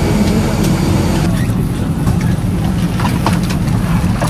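Steady low rumble of an Airbus A320's cabin air conditioning during boarding, with scattered light clicks and knocks.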